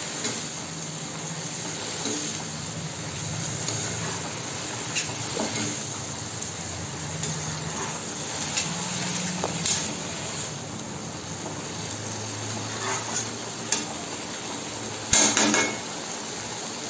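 Steel spatula stirring and scraping boiled cluster beans in an iron kadhai on a high gas flame: a steady sizzle of frying with scattered clinks of the spatula against the pan, and a louder clatter about fifteen seconds in.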